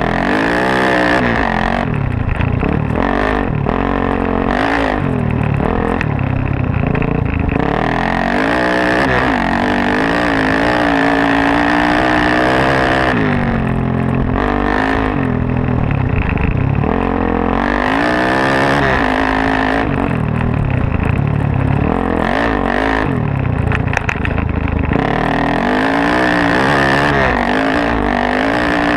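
Suzuki DR-Z400S bored out to 440, a single-cylinder four-stroke with a full Yoshimura off-road exhaust, being ridden hard off road. The engine revs up and drops back over and over as the throttle is opened and closed and gears are changed.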